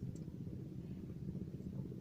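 Faint, steady low rumble of background noise with no distinct events.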